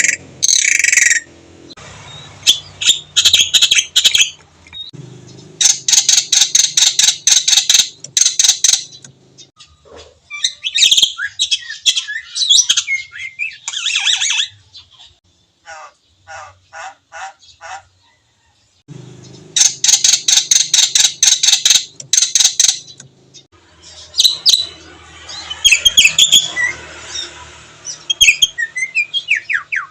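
Javan myna singing a loud, varied song of harsh rattling squawks, chirps and whistled notes, with phrases mimicked from other birds. Long rattling bursts come twice, and a run of short even notes falls between them.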